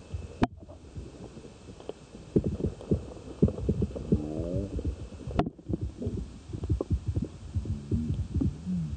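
Irregular low thumps and knocks picked up underwater near a hooked Atlantic cod on the line, with a short droning tone about four seconds in and two sharp clicks, one early and one past the middle.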